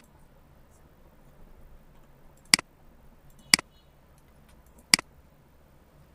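Computer mouse button clicks: one sharp click at the very start, then three more about a second or so apart, over faint background hiss.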